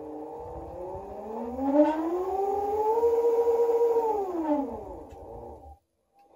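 Hoverboard hub motors running on custom firmware under ADC input control. They make a whine that rises in pitch as the wheels speed up, holds for about a second, then falls as they slow and stops shortly before the end, with a low rumble beneath.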